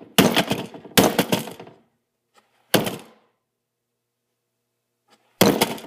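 Hard blows struck against a router: four sharp cracking impacts, three in the first three seconds and one more near the end, each trailing off briefly.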